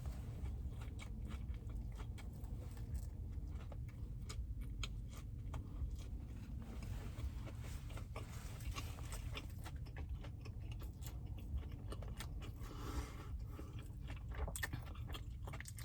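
A person biting and chewing food close to the microphone, with many small, irregular crunchy clicks over a low, steady rumble.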